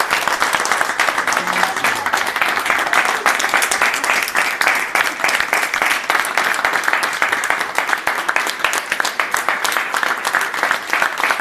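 A small group of people applauding, many hand claps blending into a steady, even patter.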